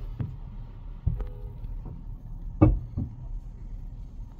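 Thumps of long-handled scrub brushes knocking against the car's body and windshield, heard from inside the cabin over a low steady rumble. There are about five knocks, the loudest a little past halfway.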